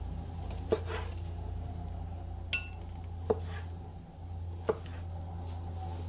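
Halved cherry tomatoes dropped into a glass measuring cup: four short knocks against the glass, spread a second or so apart, over a steady low hum.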